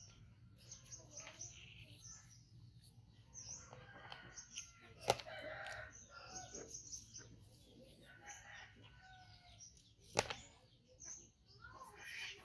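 Faint background birds chirping and fowl calling, with two sharp clicks about five seconds and ten seconds in.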